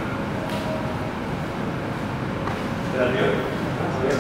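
Indistinct voices of people talking over a steady background hum, the voices rising a little about three seconds in.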